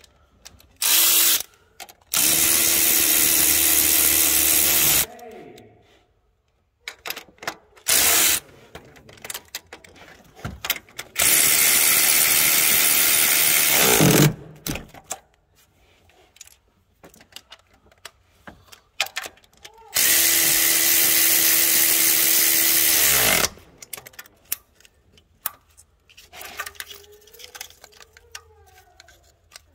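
Handheld power tool motor, like a cordless drill or electric ratchet, running in five bursts: two short blips and three runs of about three seconds. Its pitch winds down each time the trigger is let go.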